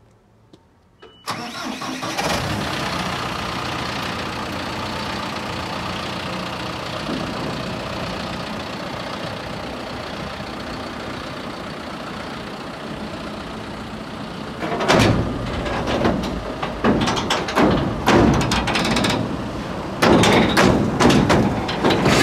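A tractor engine starts about a second in and runs steadily. In the last third it grows louder and uneven, with repeated knocking and rattling, as it drives the Schuitemaker Feedo feed wagon's three beater rollers.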